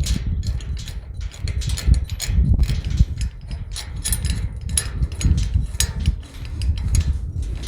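Small irregular metal clicks and taps as nuts are tightened onto the bolts of a slide bolt latch bracket on a tubular steel gate, over a steady low rumble.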